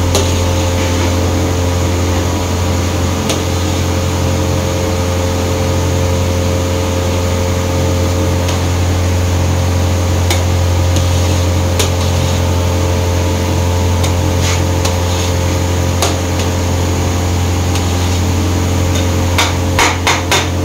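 Steady, loud low hum of kitchen equipment, with a few sharp knocks scattered through it and a quick run of clatters near the end.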